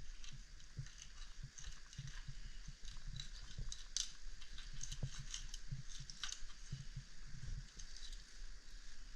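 A knife scaling and filleting fish: irregular short scrapes, crunches and light taps.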